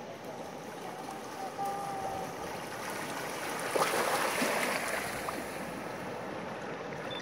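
Small waves washing up on a sandy beach, with the wash swelling about four seconds in.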